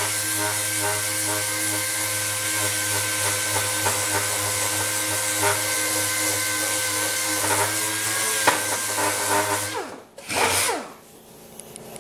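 Small right-angle disc sander with a 2-inch Roloc disc running steadily as it sands fine body filler (stopper) on a steel mower deck: a steady motor whine over a hiss. It cuts off about ten seconds in, and one short burst of the tool follows.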